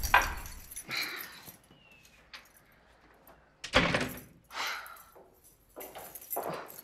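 A steel-framed glass door being opened and shut: a series of separate knocks and clicks from its handle and latch, the loudest a little under four seconds in.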